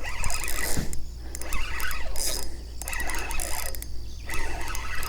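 Fishing reel being cranked to bring in a hooked largemouth bass, a mechanical whirring and clicking that comes in spurts about once a second.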